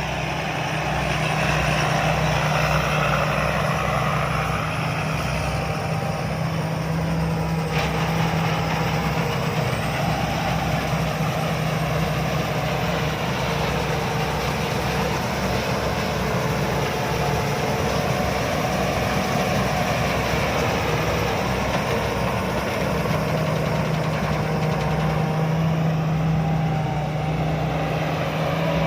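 Rice combine harvester running steadily under working load as it cuts through lodged, flattened rice: a continuous engine drone with the hum of the threshing machinery.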